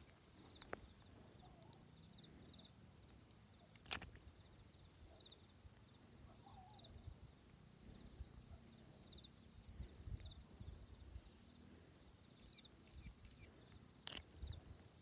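Faint insects chirping in short repeated trills over a low rumble, with two sharp clicks, one about four seconds in and one near the end.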